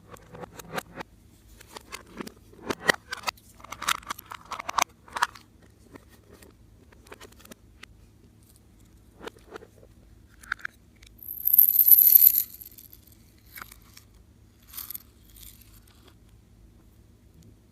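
Close-up handling sounds of slime-making: scattered sticky clicks and crackles, with a louder crinkly rustle lasting about a second roughly eleven seconds in.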